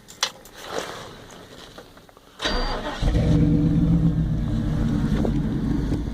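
A few light clicks, then a GM 5.3-litre V8 is cranked by the starter and catches about half a second later, running steadily afterwards. The owner reports that this engine has developed a misfire.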